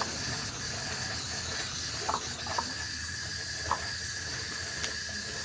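Steady hissing background noise, with a few faint short clicks scattered through it.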